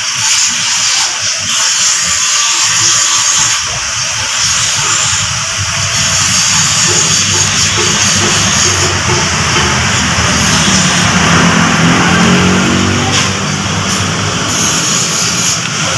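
A steady, loud rushing noise like a jet or a large fan, with a low rumble underneath.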